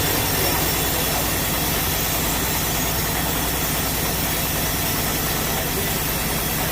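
Sawmill machinery running steadily: a low engine hum under an even, unbroken hiss.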